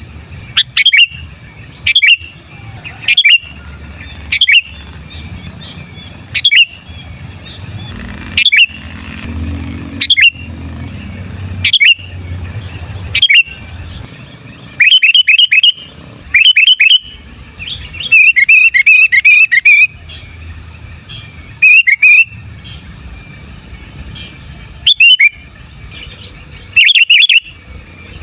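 Sooty-headed bulbul (kutilang) calling loudly over and over, with short sharp chirps every second or two. Midway there are quick runs of chirps, then a rapid chattering series about two-thirds through.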